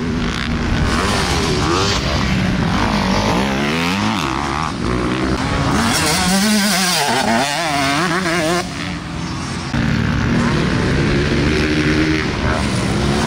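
Dirt bike engines on a motocross track, revving up and down as the bikes accelerate and ease off through the laps.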